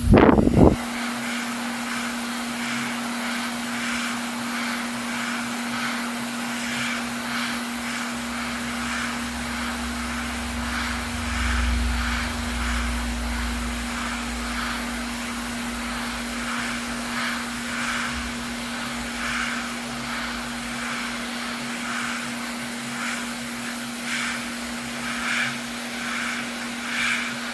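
A small blower fan running steadily, a constant whooshing with an even low hum under it, opening with a loud thump.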